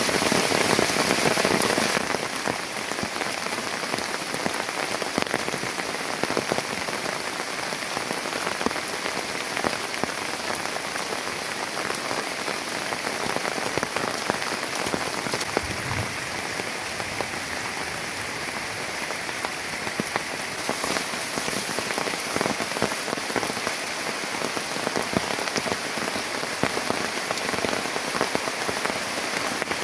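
Steady rain falling, with many single drops ticking sharply on a nearby surface; the downpour gets a little quieter about two seconds in.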